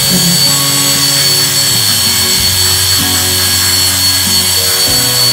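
Electric pet hair clippers buzzing steadily while shaving a dog's coat, under background music with slow held notes.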